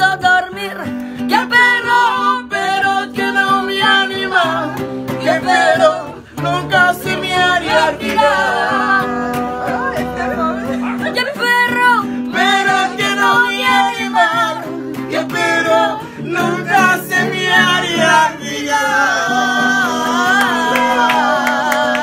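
Singing in the Mexican ranchera style, accompanied by a strummed acoustic guitar, building to a long held final note over the last few seconds.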